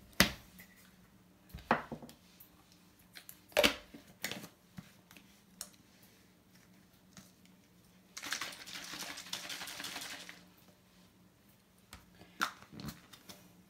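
Plastic baby bottle of formula handled on a countertop: a few sharp knocks and clicks as the tin and bottle are set down and the lid is screwed on, then about two seconds of hissing swish from the bottle being shaken to mix the powder. A faint steady low hum runs underneath.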